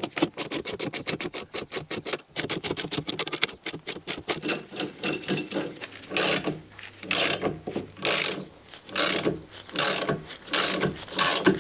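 Ratchet clicking as a bearing puller's centre screw is wound in to draw the wheel bearing's inner race off a car's front hub. It starts as a fast run of clicks for the first few seconds, then settles into slower back-strokes about once a second.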